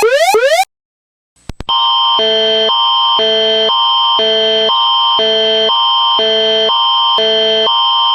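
Broadcast emergency alert attention tone: a steady high tone with two lower chords swapping back and forth every half second, starting about two seconds in. It is the Canadian Alerting Attention Signal that opens an Alert Ready message. Before it come rapid rising electronic chirps, about four a second, which cut off abruptly, then a short silence and two clicks.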